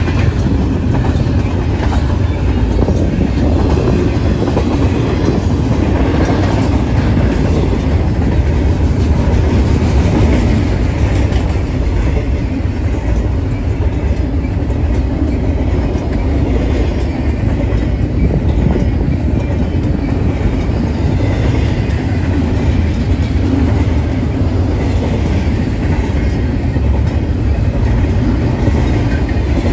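BNSF double-stack intermodal freight train rolling past close by: the steady rumble and wheel-on-rail noise of its loaded well cars.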